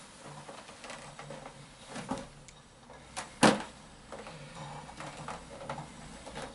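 Ninebot One S2 electric unicycle's hub motor humming in short spells as the wheel rocks back and forth, with a knock about two seconds in and a sharp, louder knock about three and a half seconds in.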